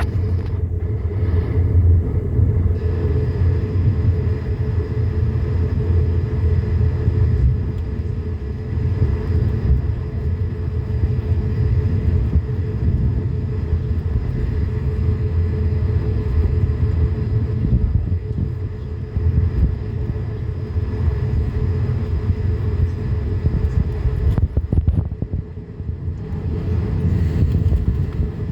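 Inside the cabin of an Airbus A220-300 taxiing: its Pratt & Whitney PW1524G geared turbofans at taxi power make a steady low rumble with a faint steady whine above it, easing briefly near the end.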